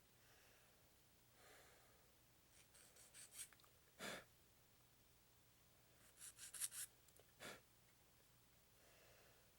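Small plastic model-kit parts being handled and pressed together: a few short clusters of quiet clicks and light scrapes, the sharpest about four seconds in and again around six to seven and a half seconds in.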